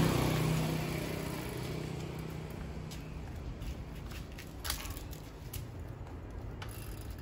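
A passing motor vehicle's engine hums and fades away over the first two seconds, leaving steady outdoor hiss with a few faint clicks a little past the middle.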